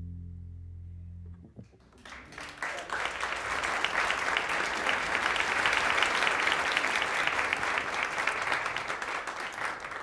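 The last held notes of double bass and guitar ring and stop about a second and a half in. Then an audience breaks into steady applause, which cuts off abruptly near the end.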